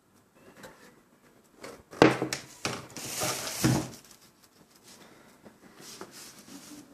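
Plastic back cover of a Samsung SyncMaster T240 LCD monitor being lifted off its freed clips and handled: a sharp knock about two seconds in, then about two seconds of scraping and rattling.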